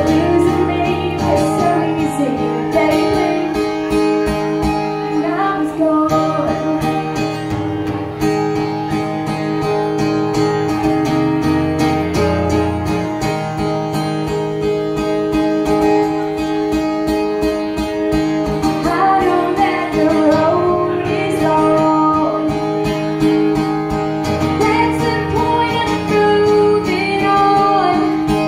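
Live solo performance: a woman singing while playing an acoustic guitar.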